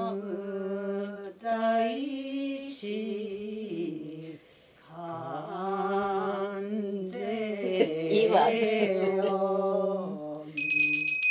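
Group of women chanting a Buddhist invocation together in long, held, sung notes that step and slide in pitch, with a short breath pause partway through. A bell rings near the end.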